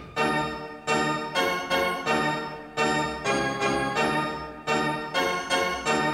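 Instrumental intro of a 1990s Hindi film song: electronic keyboard chords struck in short stabs, each hit sharp and then fading, in a syncopated rhythm.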